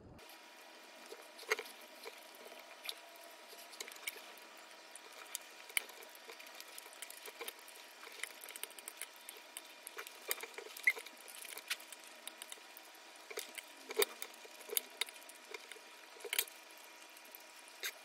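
Close-up eating sounds: scattered small clicks and taps of metal chopsticks and a fork against a glass plate, with soft chewing in between.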